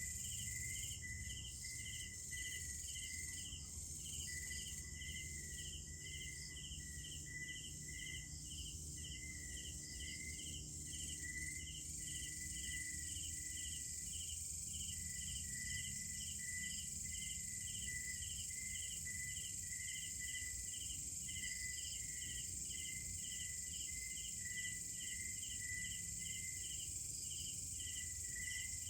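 Night insect chorus of crickets and other insects: a steady high buzz, a chirp pulsing about two to three times a second, and a trill that cuts in and out, over a faint low rumble.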